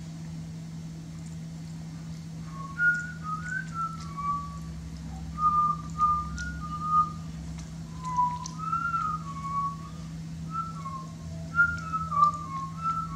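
Someone whistling a wandering tune of short notes, rising and falling, starting about two and a half seconds in, over a steady low hum.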